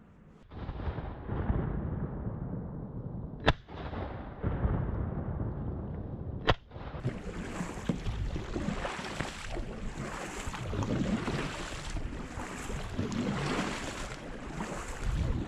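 Two shotgun shots about three seconds apart, sharp and loud, over a steady rush of moving water and wind. After the second shot come kayak paddle strokes splashing in the water.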